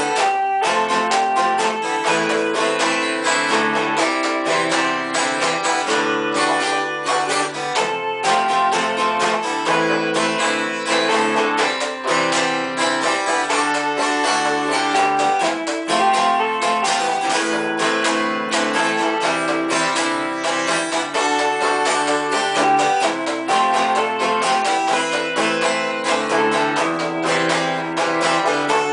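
Ibanez acoustic guitar strummed in a steady rhythm while toy Casio SA-1 and Bontempi keyboards play short held notes over it, an instrumental song with no singing.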